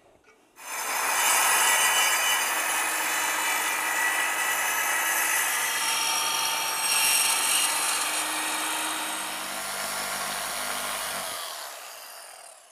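Power saw cutting 3/4-inch pre-finished plywood for cabinet sides. It runs steadily for about eleven seconds, then winds down and fades near the end.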